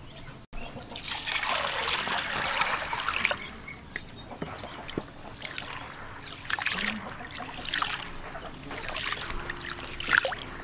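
Water splashing and trickling as hands rub and swish hulled mung beans in a plastic basin, washing them. The loudest stretch comes about a second in and lasts about two seconds, followed by softer, irregular splashes.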